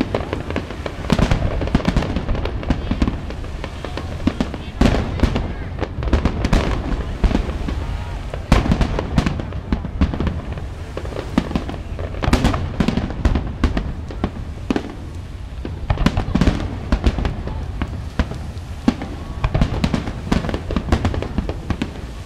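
Aerial fireworks shells bursting overhead in rapid succession: many sharp bangs, closely spaced and often overlapping, throughout.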